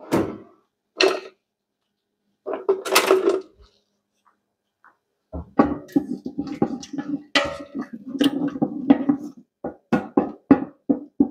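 A spoon stirring spices in a large cooking pot: a few separate scrapes and knocks, then from about five seconds in a quick run of knocks and scrapes against the pot.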